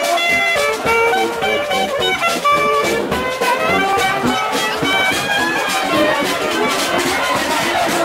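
Marching brass band playing a tune, with a sousaphone among the horns.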